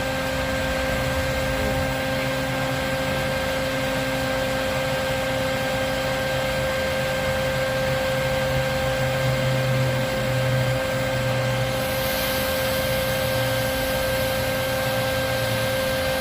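Vacuum motor running steadily with a constant whine and a rush of air through its hose, as used to suck up bees during a hive removal. About twelve seconds in, the airflow hiss turns brighter.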